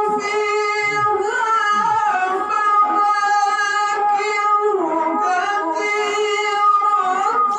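A qari chanting Islamic recitation in a high male voice, with long held notes and ornamented turns between them.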